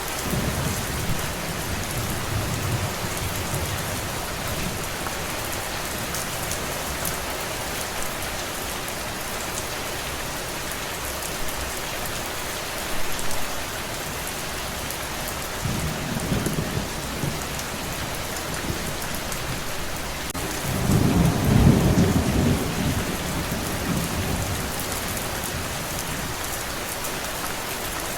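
Steady rain falling, with low rumbles of thunder rolling in at the start, again a little past halfway, and loudest about three quarters of the way through.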